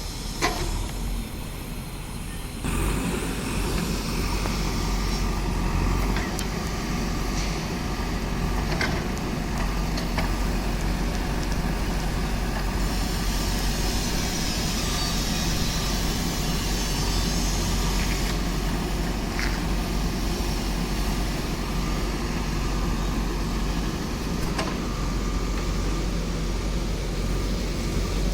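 JCB backhoe loader's diesel engine running steadily, getting louder about two and a half seconds in, with a few scattered knocks.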